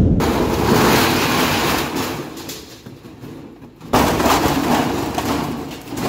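15 kg top-loading washing machine, its top panel removed, spinning with a load of clothes, the drum and cabinet rattling and banging loudly. The noise dies down over the first few seconds, then breaks in loud again suddenly about four seconds in.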